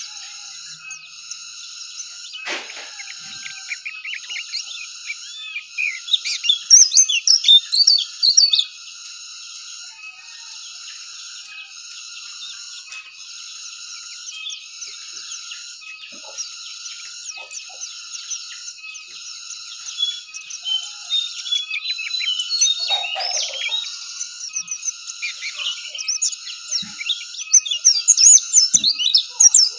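Caged pleci dakun (white-eye) singing in rapid, twittering bursts of high chirps, loudest about six seconds in and again near the end. Behind it runs a steady, evenly pulsing high-pitched drone, and there is one sharp click about two seconds in.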